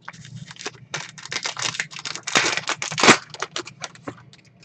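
Foil trading-card pack crinkling and tearing open, a quick run of crackling strokes that is loudest in the middle.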